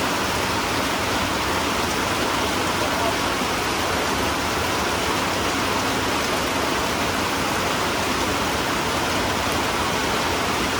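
Steady heavy rain: an even, unbroken hiss.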